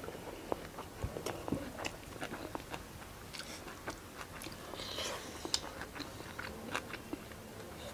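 A person chewing and biting food close to the microphone, with irregular small mouth clicks and smacks.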